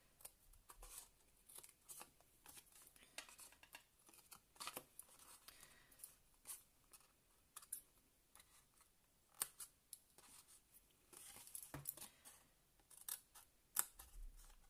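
Scissors snipping notches into scored card: quiet, irregular short snips, with soft rustling of the card between cuts.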